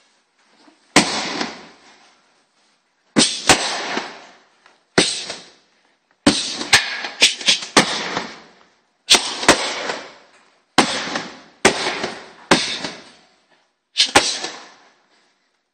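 Strikes landing on a heavy punching bag, about fifteen sharp smacks, some single and some in quick runs of two to four, each trailing off over about half a second.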